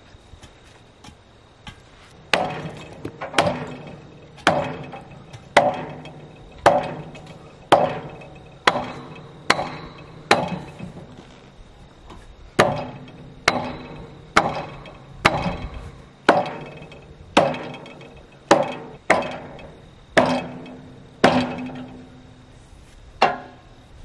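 A hammer striking wood again and again, about twenty blows at roughly one a second, each with a short ringing after it.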